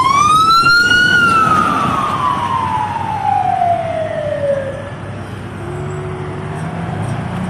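Fire engine's wail siren: the pitch rises over about the first second, then falls in one long slow sweep and dies away about five seconds in, over steady road traffic.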